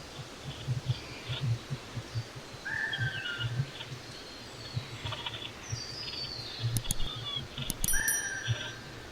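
Small birds chirping and calling, several short calls gliding down in pitch, over irregular soft low thumps and scuffs, with a couple of sharp clicks near the end.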